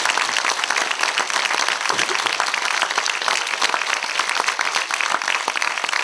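Live audience applauding, a steady dense patter of many hands clapping.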